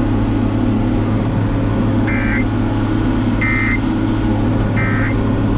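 Steady low drone of a running vehicle engine, with three short electronic beeps about a second and a half apart midway through.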